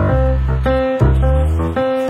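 Music with plucked guitar, the notes changing about once a second over a low bass line that slides in pitch in the second half.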